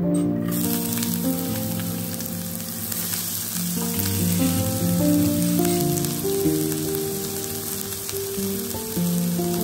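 Diced onion frying in olive oil in a nonstick pan: a steady sizzle that starts suddenly about half a second in, under background music.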